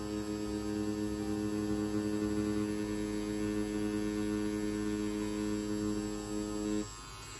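Pen-style tattoo machine running with a steady, even hum as its needle works a line into synthetic practice skin; it cuts off suddenly near the end.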